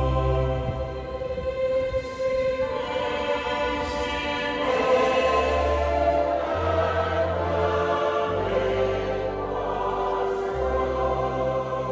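Church choir singing a slow hymn in sustained chords over held bass notes that change every second or two.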